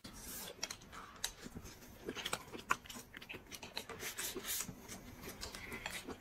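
Two people eating rice and meat with chopsticks: faint chewing and lip smacks with irregular short clicks, no talking.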